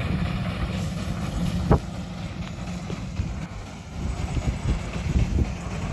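Steam traction engine running as it drives across the field, with wind rumbling on the microphone. A single sharp knock a little under two seconds in.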